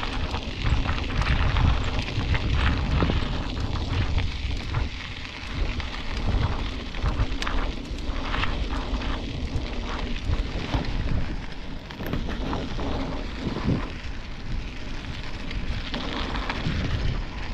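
Wind rumbling and buffeting on an action camera's microphone while riding a mountain bike, with scattered small knocks from the bike.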